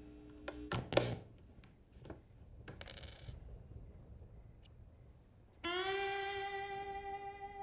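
An electric guitar handled near its amplifier: a steady hum ends with a couple of sharp knocks about a second in, then faint clicks and a short metallic jingle around three seconds in. About five and a half seconds in, a single electric guitar note is struck through the amp and left ringing.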